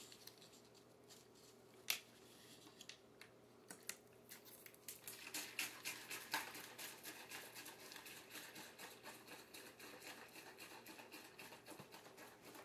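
Faint crinkling and rapid light clicking of a paper napkin handled on a table, a few scattered clicks at first and then a dense run from about five seconds in.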